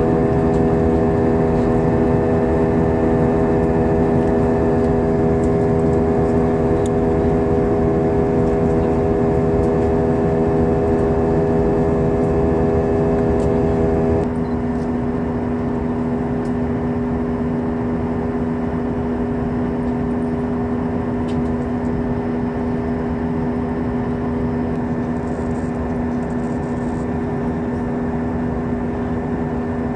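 Jet airliner cabin noise in flight: a steady rush of air and turbofan engine hum heard through the cabin window. About halfway through, the higher hum tones drop away and the sound gets a little quieter.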